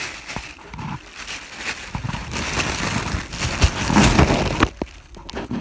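Plastic bread bag rustling and crinkling as slices of bread are pulled out of it, with many small crackles; it is loudest from about two seconds in and dies down near the end.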